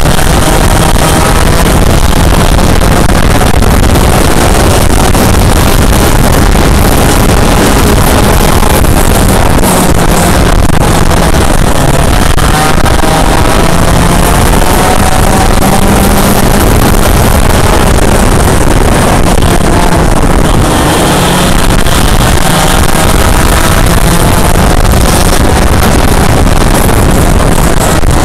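Yamaha KT100 100cc two-stroke kart engine racing flat out, its pitch rising and falling as it revs through the corners, with other karts' engines close by.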